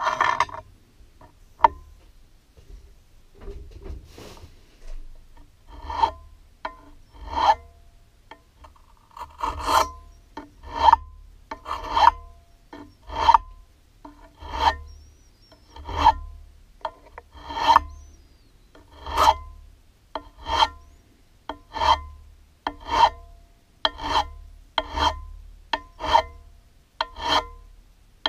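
A hand file rasping across a turned aluminium workpiece held in a lathe chuck. After a few scattered strokes it settles about six seconds in into a steady rhythm of one stroke roughly every second and a bit.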